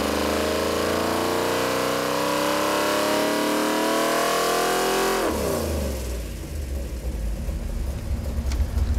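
Ford 460 big-block V8 on an engine dyno at wide-open throttle, its pitch climbing steadily as it pulls up toward 6,000 rpm. About five seconds in the throttle shuts, the revs fall quickly, and it settles to a lumpy, rumbling idle.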